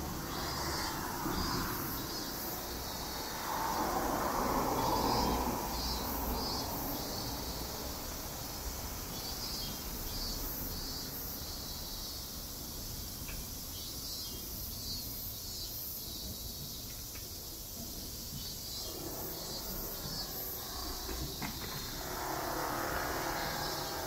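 City street ambience: insects chirping in short high-pitched pulses that repeat throughout, with traffic passing three times as swells of tyre and engine noise, the loudest at about four seconds in and again near the end.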